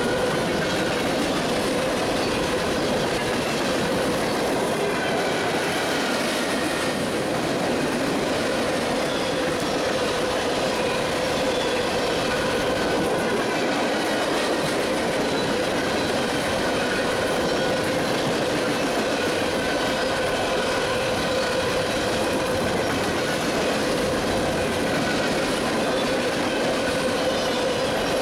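Long string of open-top freight hopper cars rolling steadily past, their steel wheels rumbling and rattling on the rails, with a steady ringing tone running through the noise.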